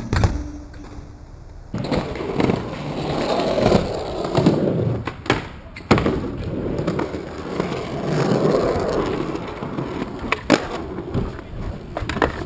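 Skateboard wheels rolling over rough concrete, starting about two seconds in, with several sharp clacks of the board along the way.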